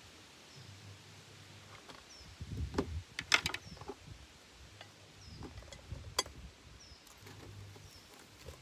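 Clicks, knocks and clatter of plates and utensils being handled on a table, loudest a little past three seconds in, with a bird's short high chirp repeating every second or so.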